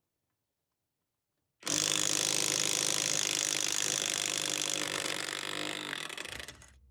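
DECERK 21-volt cordless impact wrench running on a wheel's lug nut with a 17 mm socket. It starts suddenly about one and a half seconds in, runs for about five seconds, eases off slightly and stops near the end.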